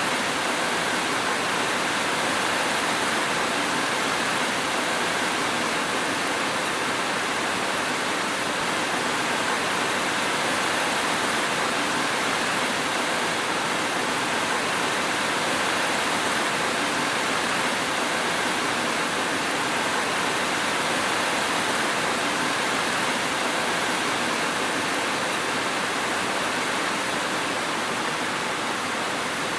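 Steady rain falling as an even, dense hiss, unchanging throughout, with no thunder or separate drop sounds standing out.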